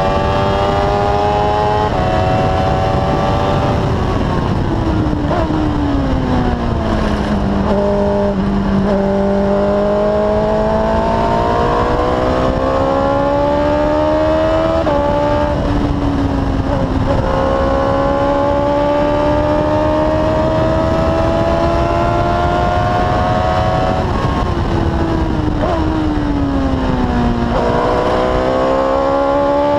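Formula Predators PC015 single-seater race car's engine, heard onboard at speed. Its pitch climbs steadily under acceleration with a few sudden small drops at upshifts, and falls twice over several seconds as the car slows for corners. Wind and road noise run underneath.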